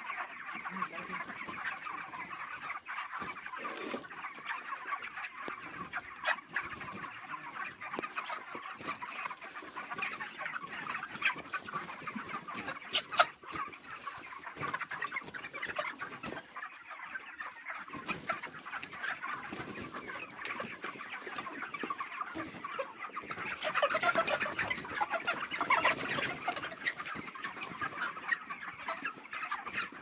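A large flock of white broiler chickens clucking and peeping in a continuous, overlapping chatter. It grows louder for a few seconds about three-quarters of the way through.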